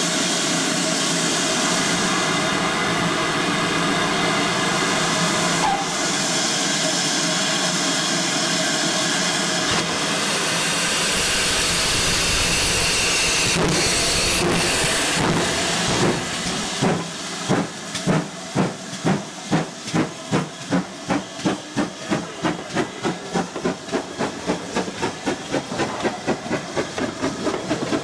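GWR 2884-class 2-8-0 steam locomotive No. 3802 with steam hissing steadily, then starting away: its exhaust chuffs begin a little past halfway, slow at first and quickening to about two a second.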